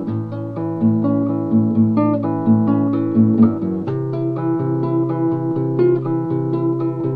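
Music: an acoustic guitar picked in a steady, quick rhythm, its notes changing in steps.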